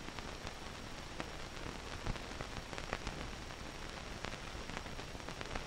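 Steady hiss from an old film soundtrack, with scattered crackles and pops.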